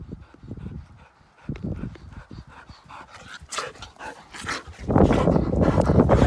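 A dog panting close by, over soft footsteps scuffing in loose sand. Near the end a loud rush of wind noise on the microphone takes over.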